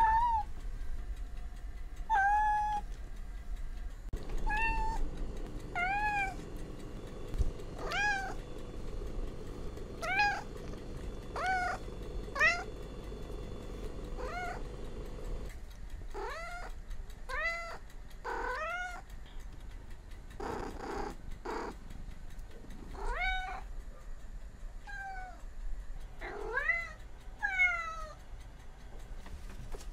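Domestic cats meowing over and over, one meow every second or two, each call rising and then falling in pitch. A steady hum sits under the meows through the middle part.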